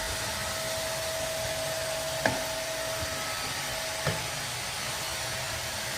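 Vacuum cleaner running steadily, a hissing rush with a thin steady whine that fades out about four seconds in. Two short knocks, about two and four seconds in.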